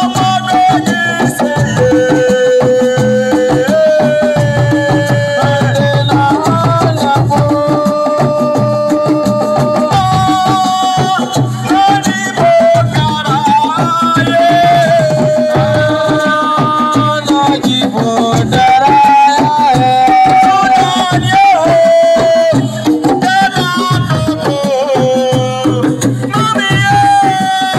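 Assiko band music: hand drums playing a dense rhythm under a held melody line that steps up and down in pitch.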